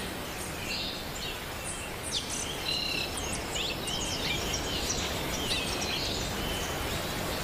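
Forest ambience: a steady hiss of background noise under many short, high bird chirps and whistles.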